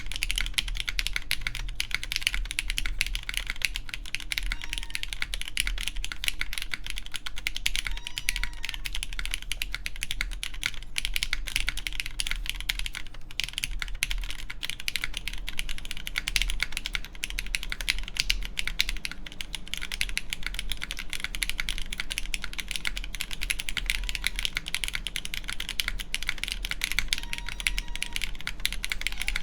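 Continuous fast typing on a RAE ADAMAS mechanical keyboard with lubed Cherry MX Black Clear Top linear switches, an aluminum plate and GMK keycaps: a steady run of keystroke clacks with brief gaps.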